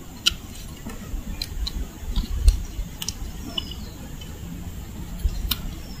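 Scattered small clicks and ticks of hands adjusting the wooden sticks and ties of a bird snare, with a few dull low bumps, the loudest about halfway through.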